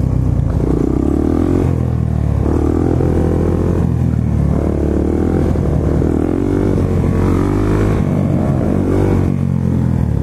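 Motorcycle engine running steadily while riding along, its note changing every second or so.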